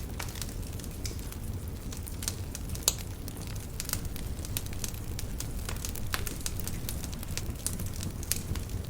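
Wood fire crackling with many small irregular pops over a steady low rumble, with one sharper, louder pop about three seconds in.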